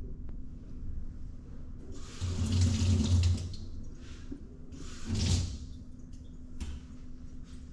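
Two short rushes of noise over a steady low hum: one about two seconds in that lasts over a second, and a shorter one about five seconds in.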